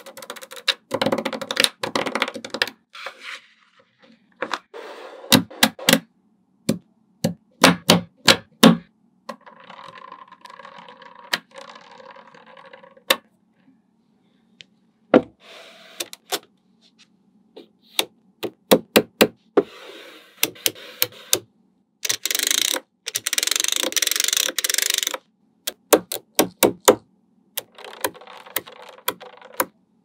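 Small magnetic balls clicking sharply as they snap onto one another, one at a time and sometimes in quick runs. Between the clicks are stretches of rubbing, rattling noise, the loudest a little past two-thirds of the way through.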